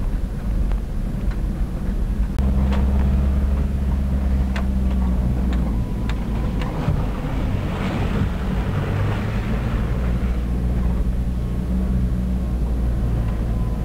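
Land Rover Defender driving slowly along a rutted dirt track, heard from inside the cab: a steady low engine drone that gets louder about two seconds in, with scattered knocks and rattles from the body and suspension over the bumps and a rush of noise around the middle.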